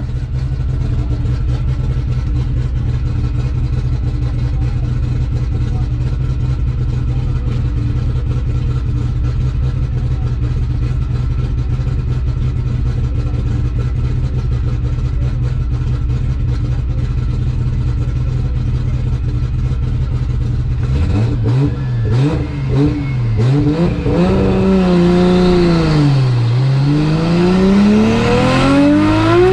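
Single-turbo Toyota Supra Mk4's built 3.0-litre 2JZ-GTE inline-six heard from inside the cabin. It idles steadily for about twenty seconds, then is revved up and down several times, and near the end the revs climb steadily as the car begins to accelerate.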